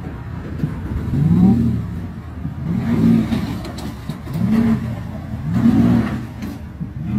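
Ford pickup truck's engine revving up and falling back about five times, roughly every second and a half, as the truck tries to drive out of wet concrete it is stuck in with its front wheel spinning.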